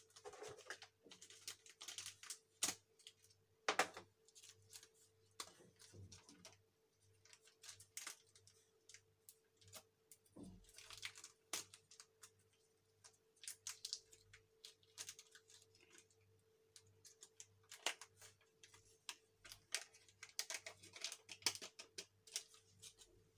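Faint rustling and crinkling of cocoa-powder sachets being opened and emptied into a stainless steel saucepan, with scattered light clicks and a spoon tapping in the pan near the end. A faint steady hum runs underneath.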